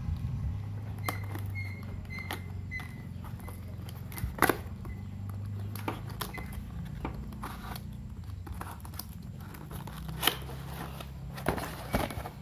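A cardboard shipping box being opened by hand: a box cutter slits the packing tape and the tape is pulled from the cardboard, with scattered clicks and scrapes and a sharp click about four and a half seconds in. A steady low hum runs underneath.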